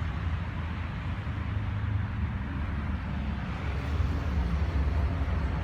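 Steady outdoor background noise: a low rumble with a hiss above it and no distinct events.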